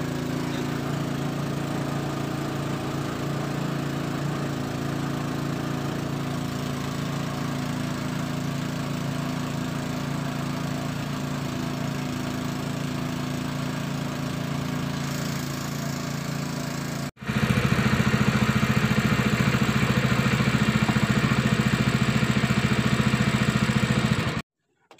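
Small engine of a wooden boat running steadily. About 17 seconds in, an edit jumps to it louder, with a fast even pulse. It cuts off suddenly near the end.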